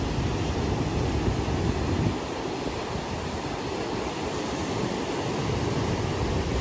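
Ocean surf breaking and washing over a rocky shoreline: a steady rush of foaming water, with wind gusting against the microphone underneath.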